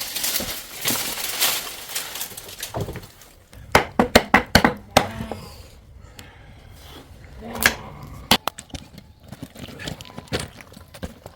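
Irregular sharp knocks and cracks, a quick cluster of them about four seconds in and more scattered ones near the end, like hard objects being struck or broken.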